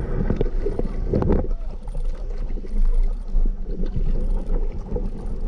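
Wind rumbling on the microphone over water splashing around a line of kayaks on a lake, with a couple of short knocks about a second in.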